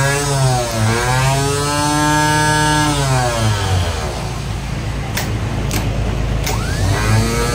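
Reassembled Maruti Wagon R starter motor running free on a bench test, powered straight from battery leads. Its whine climbs, dips briefly just under a second in, holds steady, then winds down. A few sharp clicks follow, and it whines up to speed again near the end.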